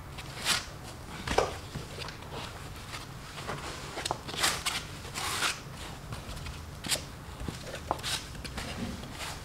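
Packaging being handled and opened: irregular short rustles and crinkles as a new laptop is unwrapped from its protective wrapping.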